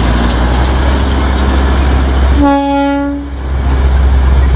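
Darjeeling Himalayan Railway diesel locomotive running past with a steady low rumble, sounding one short horn blast about two and a half seconds in.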